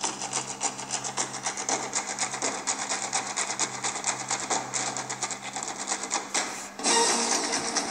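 Rapid, irregular clicking over a low steady hum. About a second before the end, music starts.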